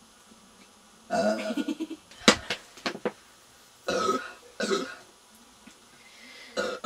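Burps, several in a row from a person full of fizzy Irn Bru soda. The first is drawn out and comes about a second in. A sharp click falls between the burps a little past two seconds in.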